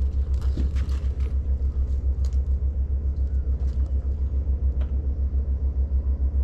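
A low, steady rumble that pulses evenly about six times a second, like an engine or motor running at idle.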